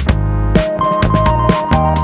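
Background music with a steady beat and held melody notes stepping downward.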